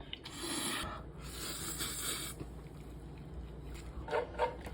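A person eating spicy noodles, making two long breathy mouth sounds of about a second each, then a few short small noises near the end.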